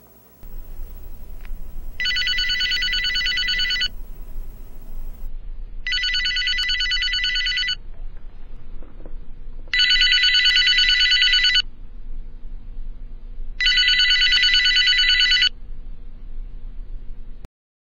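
Telephone ringing four times, each ring about two seconds long with a fast warble, coming roughly every four seconds, over a low steady hum.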